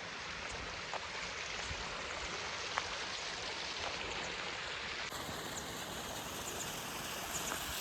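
Heavy monsoon rain falling steadily, an even hiss with scattered drops tapping close by. About five seconds in the hiss turns brighter and sharper.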